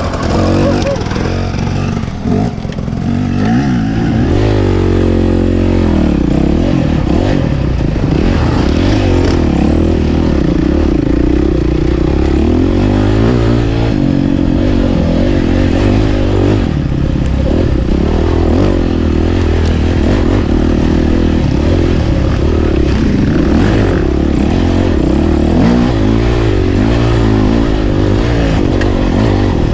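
Enduro dirt bike engine running and revving, its pitch rising and falling with the throttle; a clear climb in revs comes about four seconds in.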